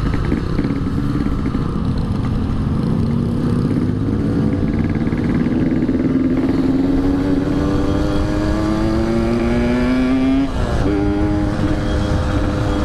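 Yamaha RX-King's two-stroke single-cylinder engine under way, its note climbing slowly and steadily in pitch for about ten seconds, then a brief break, after which it holds a steady pitch. A low rumble of wind and road noise lies under it.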